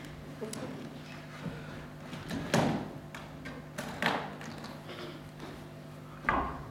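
Three knocks and thumps as a small hard case is handled and set down on the stage floor, about two and a half seconds in, about four seconds in, and near the end, over a steady low hum.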